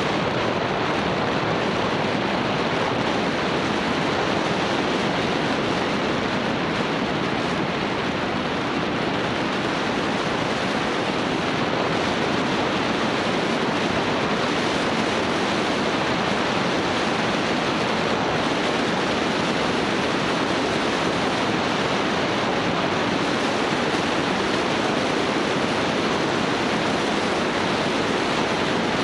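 Steady, even rushing noise with no separate events or tones.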